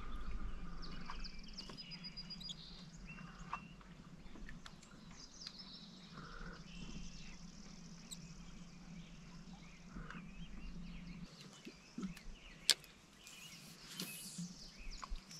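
Birds chirping and calling over a faint low hum that stops about eleven seconds in, with a few sharp clicks, the loudest one near the end.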